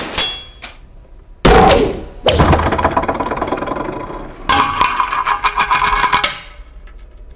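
A heavy thunk about a second and a half in, then a long rasping, scraping noise with a ringing tone running through it. The scraping swells again about four and a half seconds in and fades out near the end.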